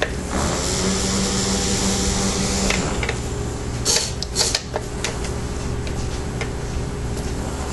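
Small electric propeller motors of a radio-control blimp's gondola buzzing close by, with a higher steady whine and hiss that drops away near the three-second mark. A few short clicks and crackles come about four seconds in.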